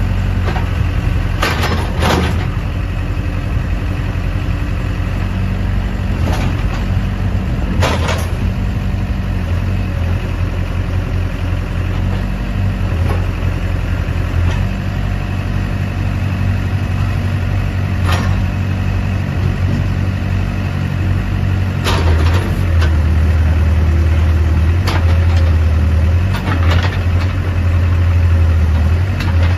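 The Case 580M Series 2 backhoe's 80 hp Case diesel engine running steadily, with a few short knocks scattered through. It gets somewhat louder in the last several seconds.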